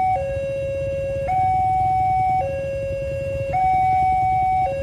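Railway level-crossing warning alarm sounding its two-tone electronic signal: a lower and a higher steady tone alternate, each held about a second. It signals that a train is approaching and the crossing is closed. A low rumble runs underneath.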